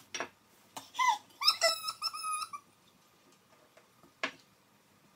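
A dog whining in a run of short, high-pitched whimpers about a second in, with a few sharp clicks before and after.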